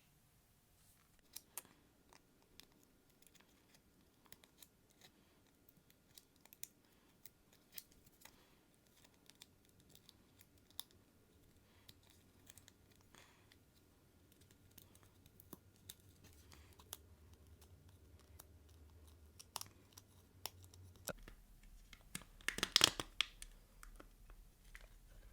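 Scattered small clicks and scratches of a leather phone case being picked apart, its magnets and coil dug out, with a louder burst of tearing about three quarters of the way through.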